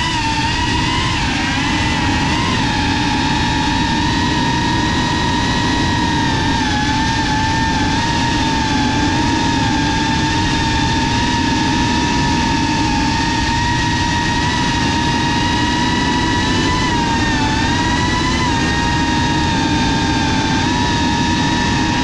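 GEPRC FPV quadcopter's electric motors and propellers whining, the pitch wavering and dipping with throttle changes, over a steady rushing noise. Heard from the GoPro mounted on the drone.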